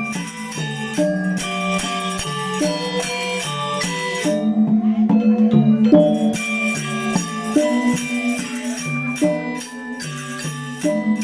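Balinese gamelan angklung ensemble playing classical music: bronze metallophones ring out a fast, interlocking run of short notes over a held low tone. A little over four seconds in, the bright high ringing drops away for about a second and a half before the full ensemble returns.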